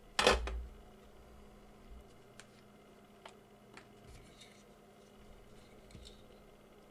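A single loud clack a fraction of a second in, then a handful of light, scattered clicks and taps, like small hard objects being handled, over a faint steady hum.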